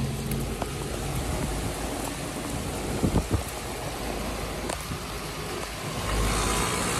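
Outdoor HVAC condensing unit running in heavy rain: a steady low hum, louder near the end, under the hiss and patter of rain. Its running sound is one that does not sound good.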